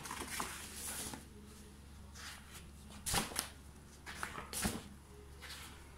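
Thick pages of a wallpaper sample book being turned and handled: a few short papery flaps and rustles, the strongest about three seconds in and again about four and a half seconds in.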